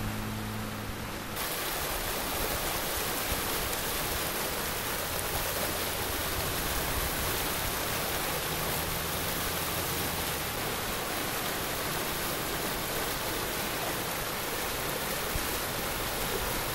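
Floodwater rushing and churning through a ditch, a steady noise of white water. About a second in it becomes louder and fuller and stays even; before that, a faint low hum lies underneath.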